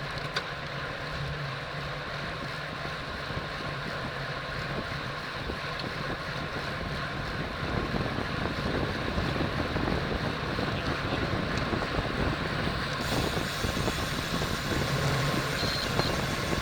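Wind rushing over the microphone of a bicycle ridden at racing speed, with road and tyre noise. It grows louder about halfway through.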